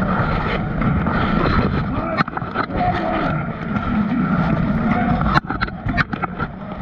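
Muffled rubbing and rumble of a fighter's surcoat and armour against a body-worn camera as he moves, with a few sharp metallic clinks of armour, over the murmur of voices in the hall.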